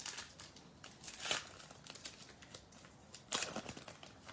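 Plastic wrapper of a basketball trading-card pack crinkling and tearing as it is opened by hand, in a few short crackly bursts.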